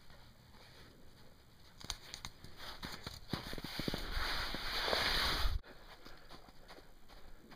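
Running footsteps in snow, with a rushing of wind over the microphone that builds from about two seconds in and cuts off suddenly after five and a half seconds; fainter steps follow.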